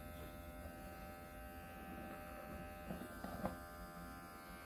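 Electric pet hair clipper running with a steady hum as it trims a dog's fur.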